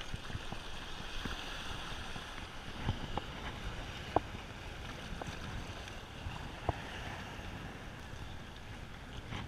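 Wind buffeting the microphone over choppy sea water washing against the jetty rocks, with a couple of sharp clicks about four and seven seconds in.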